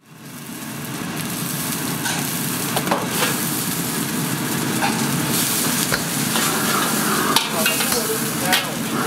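Wok cooking on a commercial gas wok burner: the burner and a running tap make a steady noise, and a bamboo wok brush and metal ladle scrape and knock on the wok. Partway through, vegetables go into the hot wok and sizzle.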